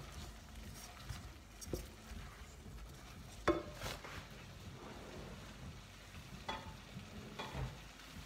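Chicken and vegetables cooking in a saucepan, stirred with a wooden spoon at first. A sharp knock comes about halfway through, and a few lighter knocks follow later.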